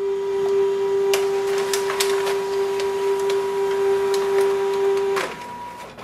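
Canon imageCLASS MF654cdw scanning a page: a steady motor hum with a few light clicks, which stops about five seconds in.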